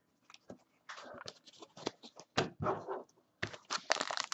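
Foil trading-card pack wrapper crinkling as it is handled and torn open: scattered faint crackles that get louder near the end.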